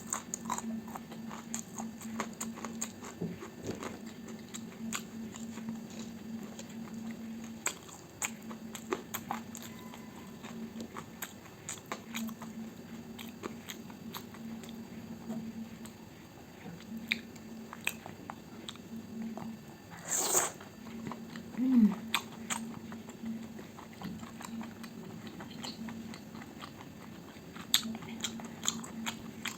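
Close-miked chewing of fried breakfast food, with wet mouth sounds and crisp crunches and clicks, one louder crunch about twenty seconds in.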